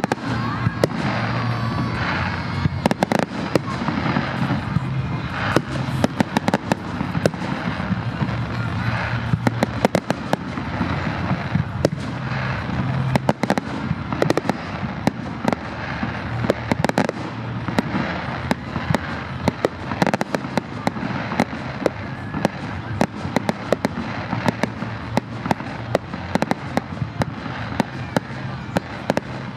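A public firework display going off in quick succession, with many sharp bangs and crackles throughout.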